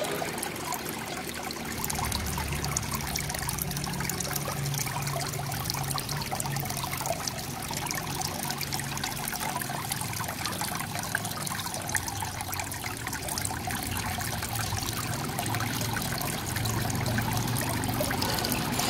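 Aquarium water trickling and bubbling, over a low hum.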